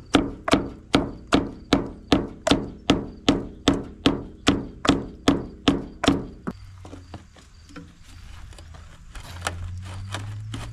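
Hammer tapping repeatedly on a corroded lead battery terminal clamp to knock it loose from the post: about sixteen sharp metallic blows, two or three a second, stopping about six seconds in and followed by faint irregular clicks.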